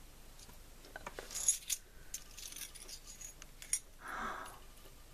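Small metal scrapbooking charms, bronze-tone gears and a filigree round setting, clinking lightly together in a hand: a few sharp little ticks, the loudest about a second and a half in and again just before four seconds, followed by a brief soft rustle.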